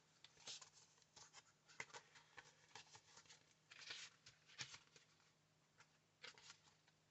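Near silence with faint, scattered rustles and light taps of paper being handled on a craft table, a little louder about four seconds in and again near the end.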